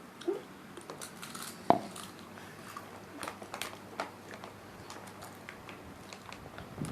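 Close-up eating sounds: chips being bitten and chewed, with scattered short crunches and crackles and one sharper click about two seconds in.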